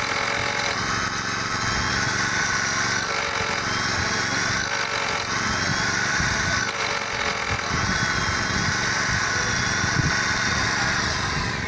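Corded electric drill running under load, boring into a precast concrete ring. Its steady motor whine sags and recovers several times as the bit bites.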